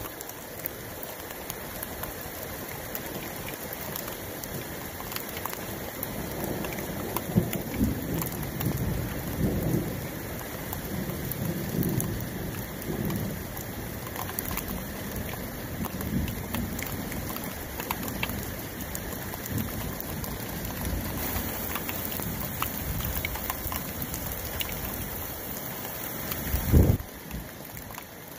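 Heavy rain falling steadily in a thunderstorm, with thunder rumbling low through the middle. A sharp, loud low thump comes near the end.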